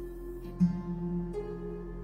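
Soft background music over an end screen: slow notes that sound plucked, a new one about every second.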